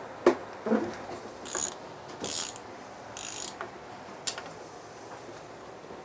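Hand socket ratchet clicking on its return swings while loosening a tail-housing bolt on a T56 transmission. There are three short runs of rapid clicks about a second apart, with a few single knocks of the wrench and socket before and after.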